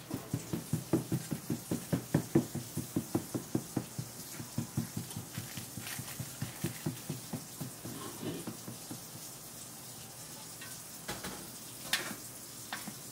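A spatula working quickly back and forth through thick, airy castella batter in a large baking tray, making soft wet slaps about five times a second that fade out after about nine seconds. A few sharp knocks follow near the end as the mixing bowl is scraped.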